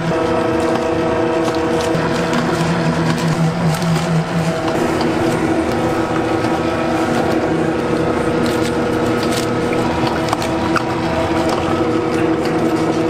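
A motorised machine hums steadily under a dense run of small clicks and clatter. Its pitch pattern shifts about four and a half seconds in.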